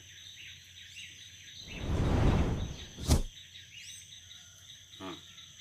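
A short rushing whoosh swells and fades about two seconds in, with a sharp knock near its end. Under it runs a steady background of insects, with birds chirping a few times.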